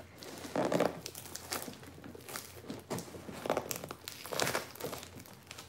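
Plastic packing tape wrapped around a cardboard box crinkling and crackling irregularly as fingers pick and pull at it.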